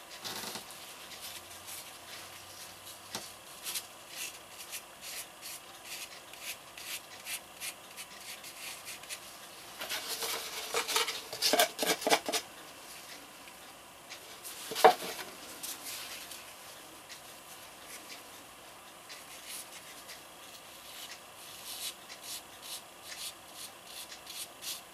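Wet concrete patching mix being worked by gloved hands: light rubbing and scraping, with a louder spell of scraping in the plastic mixing tub about ten seconds in and a single sharp knock a few seconds later.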